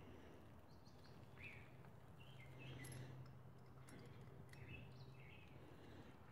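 Near silence: faint bird chirps in the background, with a few small faint clicks.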